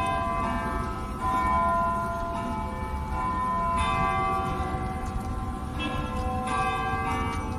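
The bells of the Elizabeth Tower (Big Ben) at Westminster chiming. There are about six strikes at uneven spacing, each one ringing on and overlapping the next, over a steady low rumble.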